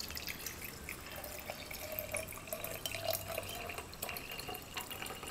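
Apple cider vinegar pouring in a thin stream from a bottle into a glass mason jar, splashing onto rusty steel studs and nuts as the jar fills.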